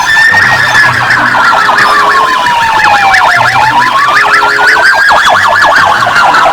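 Electronic police-car siren sound: a slow wail that sinks and rises again over a few seconds, with a fast warbling yelp running over it.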